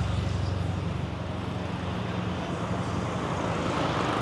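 City street traffic: a motor vehicle's engine runs close by with a steady low drone that weakens about three seconds in, over the general noise of passing traffic.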